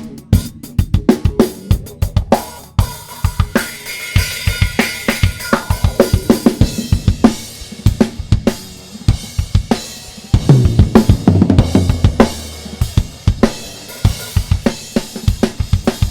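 Isolated rock drum kit track from a live recording: kick, snare, hi-hat and cymbals playing a busy beat. It is heard through a Calrec PQ1549-style EQ with the mid band at maximum boost and the Q in, giving a resonant, honky colour.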